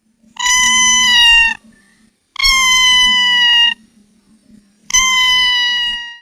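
Domestic cat meowing three times: long, drawn-out calls, each falling slightly in pitch toward its end.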